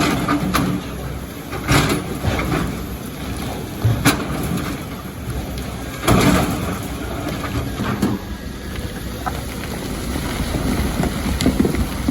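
Excavator engine running with a steady rumble, broken by several sharp knocks and crashes of rock and sand being dug and falling, the biggest about six seconds in.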